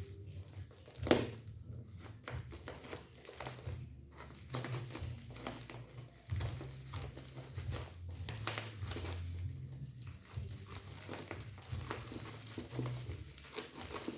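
Parcel packaging being crumpled and torn open by hand: a continuous run of irregular crinkles and crackles, with one sharp, loud crack about a second in.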